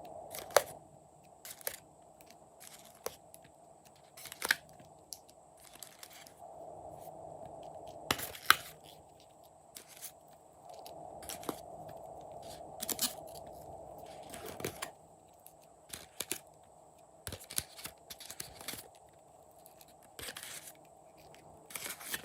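Slime being worked by hand, giving irregular sticky pops, clicks and crackles, a few of them sharp and loud, over stretches of soft squishing.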